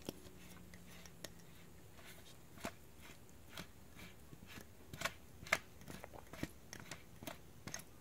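Faint, scattered plastic clicks and taps as a Blue Snowball iCE microphone and its small tripod stand are handled and turned in the hands, more frequent and a little louder in the second half.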